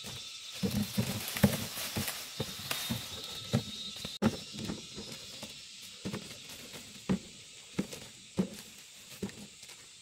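Dried corn ears being tossed into woven baskets and onto a pile of cobs: irregular dull knocks, roughly one or two a second, over a steady faint high hiss.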